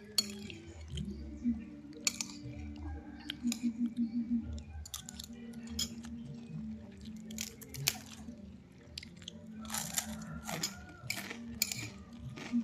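Close-up chewing and crunching of food, with scattered short sharp clicks and crackles, over a faint steady low hum.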